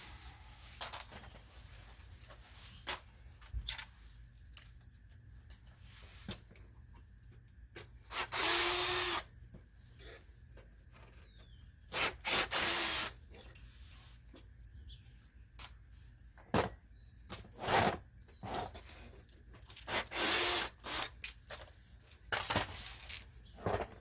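Power drill run in three short bursts of about a second each, its pitch dropping as it spins down, amid scattered clicks and knocks of tools working on a safe door.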